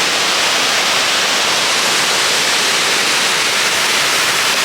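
A waterfall rushing: a steady, loud, hissing roar of falling water that does not change.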